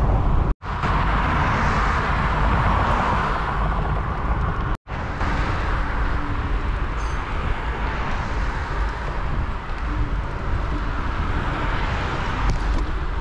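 Wind rushing over the microphone while riding a bicycle, mixed with road traffic noise. The sound cuts out abruptly twice, about half a second in and just before five seconds in.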